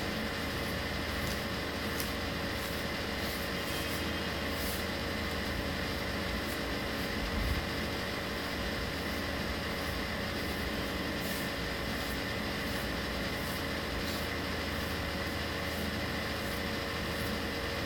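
Steady room hum and hiss, like a running air conditioner or fan, with one soft low thump about seven and a half seconds in.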